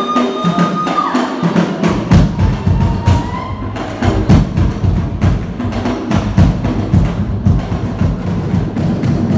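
Fast Polynesian drumming accompanying a dance: rapid wooden strokes with deep drum beats coming in about two seconds in. A high held tone sounds over the drums in the first second.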